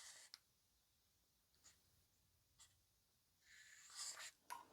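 Faint scratching of a pen on paper in two short spells, one at the start and a longer one near the end, with a few light ticks in between.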